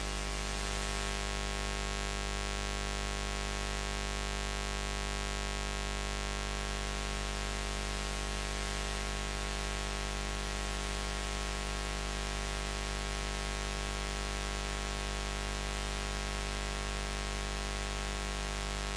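Steady, unchanging electrical-style buzz: a low hum with many evenly spaced overtones and a hiss above it.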